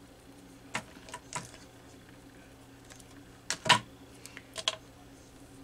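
A handful of light clicks and taps as small miniature broomsticks are handled and set down on a craft mat, the loudest a little over halfway through.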